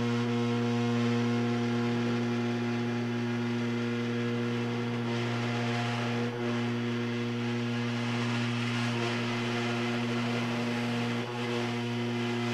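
CNC router spindle running at 12,000 RPM and milling copper sheet with a small carbide router bit: a steady droning hum with several held tones, over a hiss from the cut.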